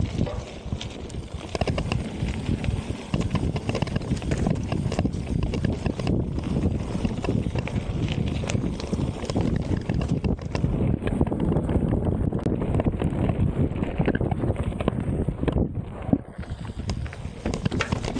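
Mountain bike ridden fast down a rough trail: a continuous rumble and rattle of tyres and frame over the ground, full of small knocks and clatters, with wind buffeting the camera microphone.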